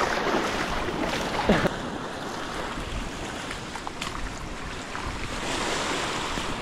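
Water splashing in the first second or two as a hooked barramundi thrashes at the surface while it is being landed, then a steady rush of wind noise on the microphone.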